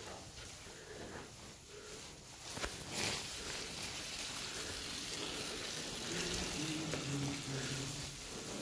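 Cattle barn ambience among Holstein heifers: steady hiss with cattle moving about on straw. A sharp click comes about two and a half seconds in, a short breathy burst just after, and a low pitched drone lasts a couple of seconds near the end.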